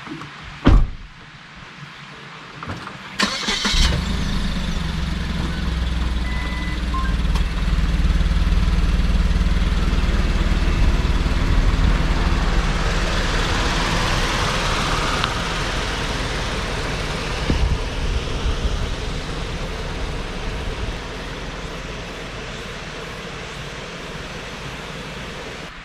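A thump, then about three seconds in a car engine starts and settles into a steady hum. The car drives off past the microphone, engine and tyre noise loudest about halfway through, then fades gradually as it moves away.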